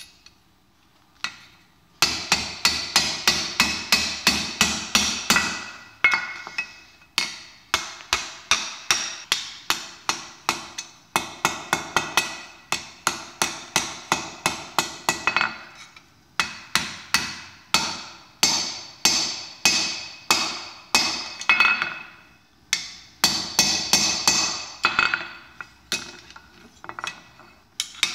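Hand hammer forging red-hot 3/8-inch mild steel rod on a steel anvil: runs of quick blows, about four a second, each ringing, broken by short pauses. The hammering starts after a brief quiet with a single clink.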